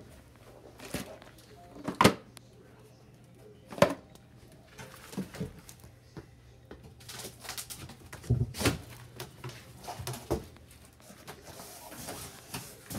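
Scattered knocks, clicks and rustles of things being handled, the two sharpest about two and four seconds in, over a low steady hum.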